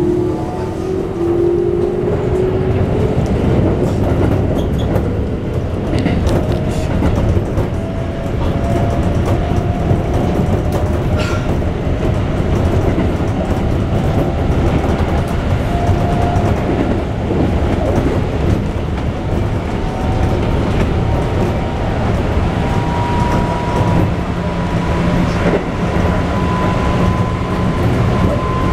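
Running sound heard inside a Keikyu 1500-series electric train car. The whine of its Mitsubishi GTO-VVVF inverter traction motors climbs in pitch as the train accelerates, strongest over the first couple of seconds, then fainter tones creep slowly higher. Under it runs the rumble of wheels on rail, with occasional rail-joint clicks.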